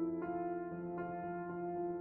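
Slow instrumental light music on an electronic keyboard: sustained chords and held notes, with new notes coming in about a quarter second and about a second in.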